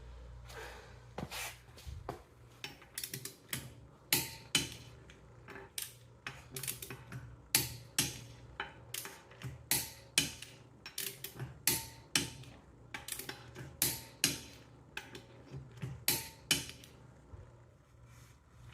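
Sharp metallic clicks and clanks of hand tools being worked on bolts, a few a second at uneven intervals, thinning out near the end.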